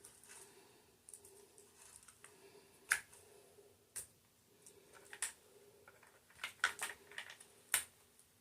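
Faint scattered clicks and light taps of something being handled, the sharpest about three and four seconds in and a cluster of them near the end.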